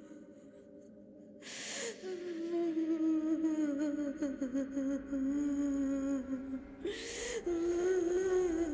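A voice humming a slow tune in long held phrases, its pitch wavering, with a sharp airy breath in about two seconds in and another around seven seconds.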